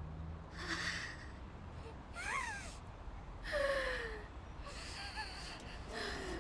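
A girl's frightened voice: a run of short, nervous gasps and whimpers about a second apart, several sliding down in pitch.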